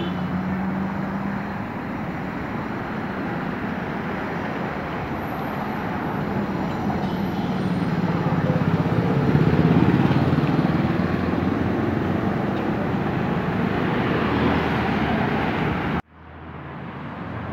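Steady motor vehicle and road traffic noise, with a low engine hum, swelling louder about nine to ten seconds in and cut off abruptly near the end.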